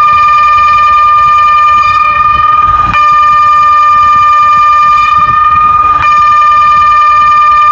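SES 600 warning siren sounding loudly on one steady, unchanging pitch, with a brief dip about every three seconds.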